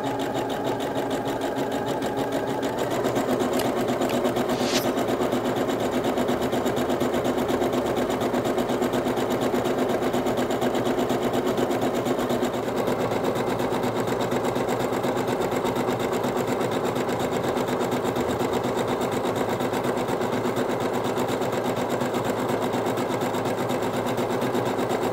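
Singer Heavy Duty 6805 sewing machine running steadily, stitching a dense zigzag overlock-type edge finish at 1 mm stitch length. About three seconds in, its pitch steps up and it grows a little louder.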